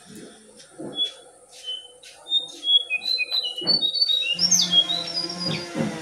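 A jongkangan bird singing a run of short, clear whistled notes that jump up and down in pitch. The notes start sparse and come quickly from about two seconds in, with sliding notes near the end, over a low hum in the second half.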